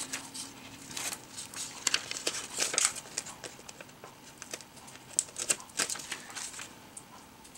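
Sheets of paper and translucent vellum being handled on a cutting mat: light, uneven rustling and crinkling with small ticks and taps.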